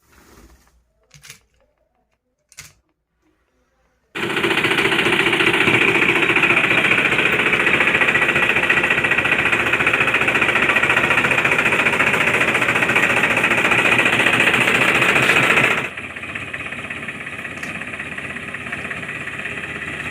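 A few faint taps, then about four seconds in a small motorised machine starts up with a loud, fast, steady rattle; near the end it drops noticeably in level and keeps running quieter.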